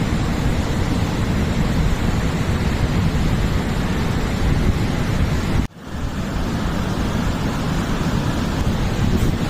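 Sea waves washing on a beach, a steady rushing noise with wind buffeting the microphone. The sound drops out for an instant a little past halfway, then returns.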